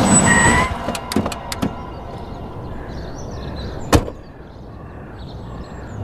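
A car stopping: a low engine rumble with a few light clicks, then a single loud car-door thump about four seconds in, after which the rumble drops away. A music cue ends in the first second.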